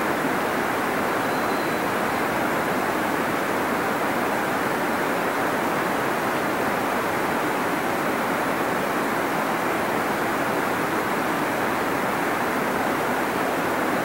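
Steady, unbroken rush of a waterfall.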